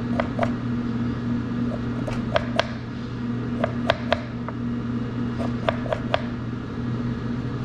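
Metal spoon scraping the skin off a piece of fresh ginger, in short scattered scratches and clicks, some in quick pairs. Under it a steady low hum, like a fan.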